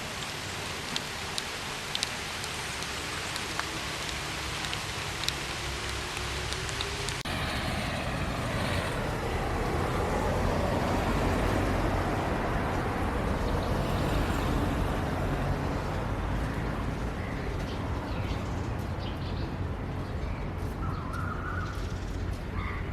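Steady rain hiss with occasional sharp drip ticks. About seven seconds in it cuts abruptly to a lower, heavier rushing noise with a deep rumble that swells and eases.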